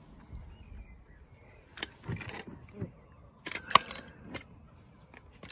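Handling noise from a car door speaker being fitted to the door's inner panel: a few short clicks and rattles of plastic and small metal parts, the loudest a sharp click about three and a half seconds in.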